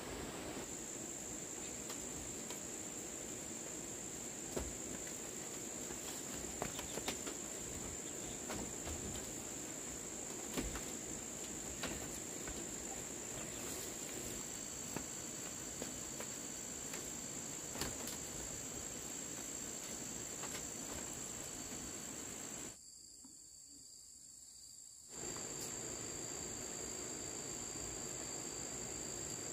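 Insects chirring in a steady, high, even drone, with a second, lower steady tone joining about halfway through and scattered light clicks and knocks. The sound drops almost to silence for about two seconds about three-quarters of the way through.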